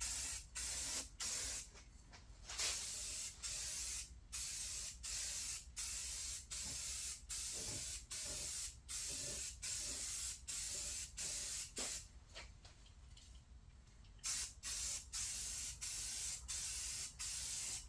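Spray paint hissing out in short bursts, about two a second, laying on a light first coat. The spraying stops for about two seconds about two-thirds of the way through, then carries on.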